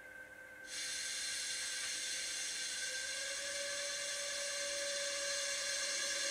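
Sound module of a model electric locomotive at a standstill, switching on suddenly under a second in: a steady hiss of blowers with a hum under it, the hum rising a little in pitch about three seconds in.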